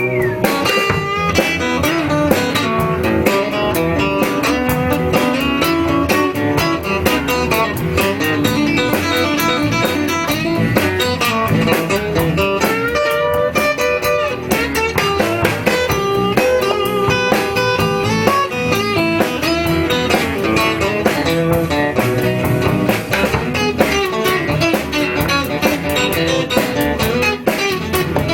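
Blues band playing an instrumental passage with guitar to the fore.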